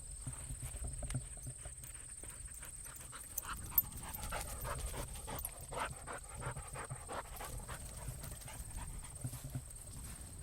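A dog panting, with scattered small clicks and rustles of movement around it.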